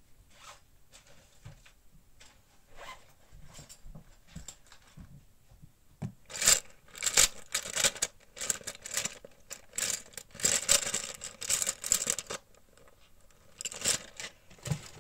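A thin crinkly sheet being handled and peeled, crackling and rustling in loud clusters from about six seconds in, with a shorter burst near the end. Before that there are only faint taps and soft paper rustles.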